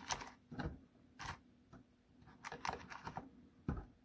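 A clear plastic bag of resin model parts crinkling and rustling as it is pressed into a small box, with irregular short clicks and taps of the pieces and box being handled.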